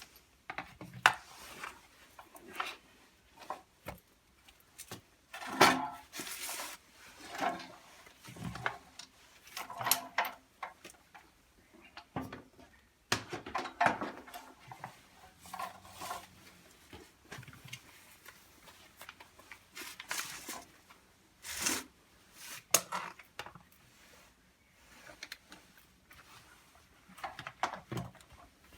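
Hard plastic and metal parts of a hammer drill being handled and worked on by hand: scattered clicks, knocks and light clatter, with no motor running.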